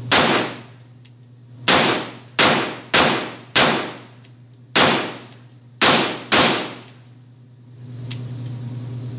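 Diamondback Sidekick nine-shot revolver firing .22 Magnum in rapid double action: eight sharp shots at uneven intervals over about six seconds, each ringing briefly off the walls of an indoor range, with a steady low hum of the range behind. A couple of rounds fail to fire in the string.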